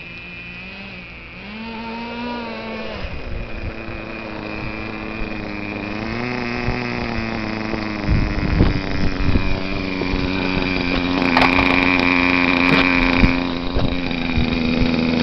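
Nitro RC truck's small .18 two-stroke glow engine running, its pitch rising and falling as the throttle is worked, then holding higher. Scattered knocks about halfway through as the truck bumps around.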